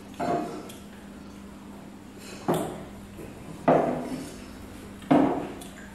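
Wine glasses being set down and handled on a wooden tasting table: four separate knocks of glass on wood, a second or more apart.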